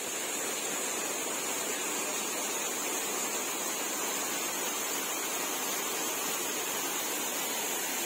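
Small waterfall pouring onto rocks close by: a steady, even rush of splashing water.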